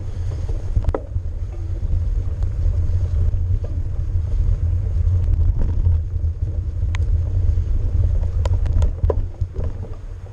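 Mountain bike rolling down a snowy dirt trail: a steady low rumble of wind buffeting the GoPro's microphone and tyres on the ground, with scattered sharp clicks and knocks from the bike over bumps, a few bunched together near the end.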